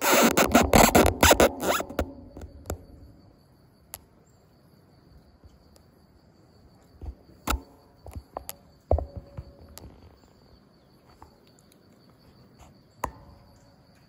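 Handling noise from a smartphone being moved: a loud stretch of rapid rustling and clicking for about two seconds, then occasional sharp taps over a faint steady high-pitched whine.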